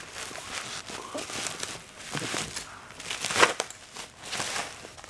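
Bubble wrap, taped around a cardboard box, crinkling and crackling as it is pulled and peeled off. It comes in repeated rustling bursts, the loudest about three and a half seconds in.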